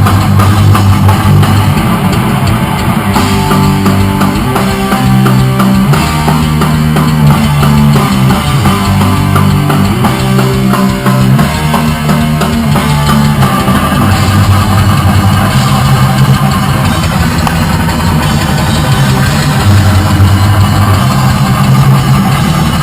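Loud rock music: a drum kit and electric guitars playing a full-band passage, with a run of quick picked notes in the middle.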